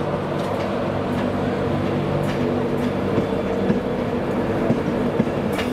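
LNER passenger train's coaches rolling slowly along the platform, with a steady drone and a few faint clicks from the wheels.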